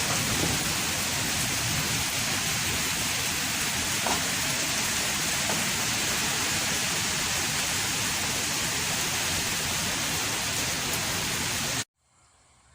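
Heavy rain pouring steadily during a nor'wester thunderstorm. It cuts off abruptly near the end, leaving a much fainter steady background.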